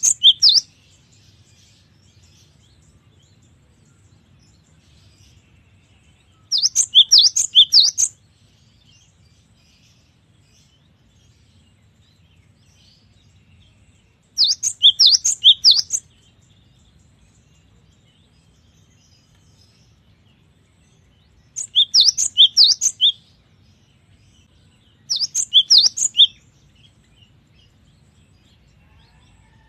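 Gelatik batu (cinereous tit) singing: about five bursts of quick, high, repeated whistled notes, each one to one and a half seconds long, with pauses of several seconds between them.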